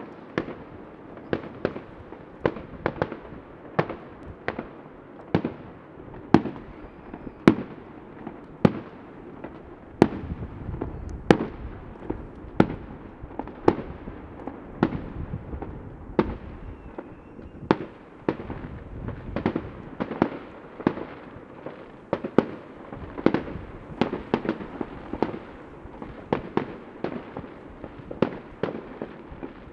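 Fireworks going off across the city in an irregular stream of sharp bangs, one to three a second, with a low rumble between them.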